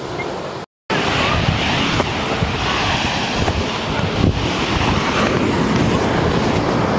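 Surf washing onto a sandy beach, mixed with wind rumbling on the microphone. The sound drops out to silence for a moment just under a second in.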